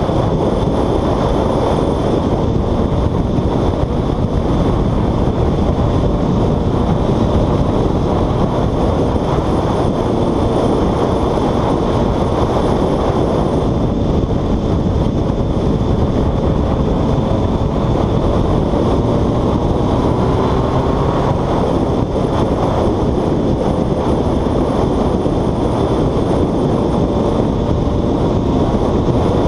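Motorcycle riding at highway speed, heard from a helmet-mounted camera: a steady rush of wind over the microphone with engine and tyre noise beneath, the engine note drifting slightly up and down.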